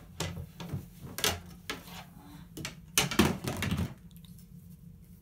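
A plastic floorball stick being picked up and handled, giving a series of knocks and clatters, with the loudest cluster about three seconds in.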